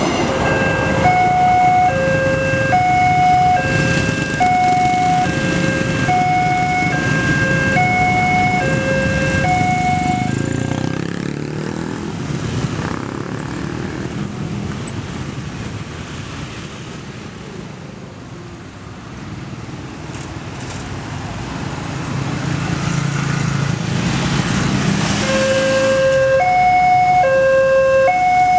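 Railway level-crossing warning alarm sounding a steady two-tone electronic signal, alternating low and high, with the rumble of a passing train at first. The alarm stops about ten seconds in, leaving road traffic noise. It starts again near the end, warning of another train.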